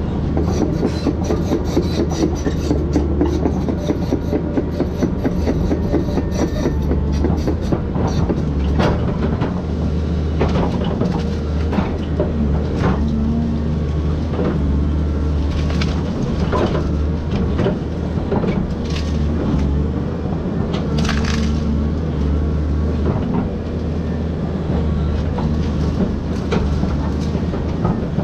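Volvo excavator's diesel engine running steadily under hydraulic load, with scattered sharp cracks and knocks as citrus trees are torn out and their branches and roots break.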